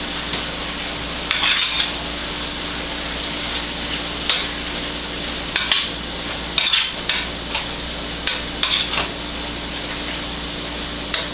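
Metal utensil scraping and clinking against a stainless-steel skillet as a thick food mixture is stirred, in about a dozen short, irregular strokes over a steady hiss.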